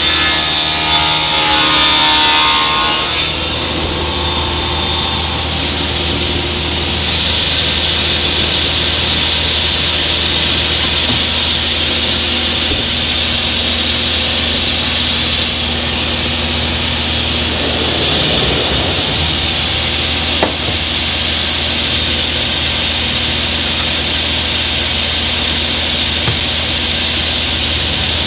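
Sliding table saw running, its blade crosscutting panel stock. The cutting noise is loudest for the first three seconds, eases, then rises again about seven seconds in and holds steady.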